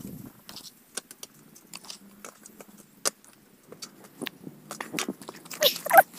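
Scattered light clicks and taps, with a short, louder pitched sound near the end.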